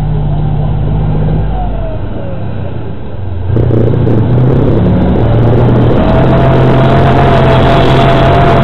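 Soviet tank's diesel engine running, then getting suddenly louder about three and a half seconds in as it pulls harder, with a steady whine joining in near the end.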